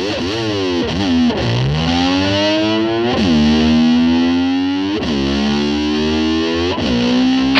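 Distorted electric slide guitar imitating a motor scooter revving: the pitch swoops down and climbs back up about five or six times, each time settling into a held note.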